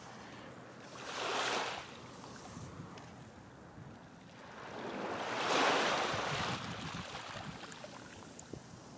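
Ocean surf sound effect: rushing noise that swells twice, a short wash about a second in and a longer, louder one around the middle.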